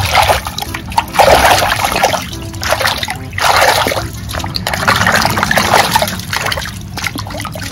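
A hand swishing and scrubbing a muddy plastic toy in a basin of water, with water splashing and sloshing in repeated surges about once a second.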